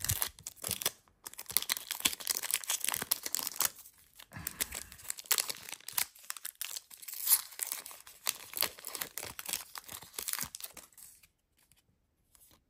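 Foil trading card pack wrapper being torn open and crinkled in the hands, a dense crackling rustle that stops about a second before the end.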